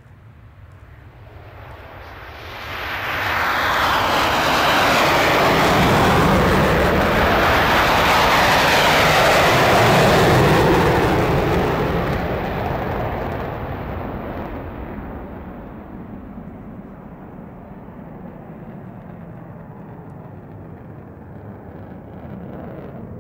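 Grumman F-14 Tomcat's twin engines in full afterburner on takeoff. The noise builds over the first few seconds and is loudest for about ten seconds as the jet passes, sweeping down in pitch. It then fades to a distant rumble as the jet climbs away.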